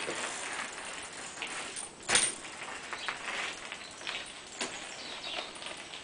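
Mountain bike tyres crunching over loose gravel, with one sharp clack about two seconds in as the bike comes down from a bunny hop.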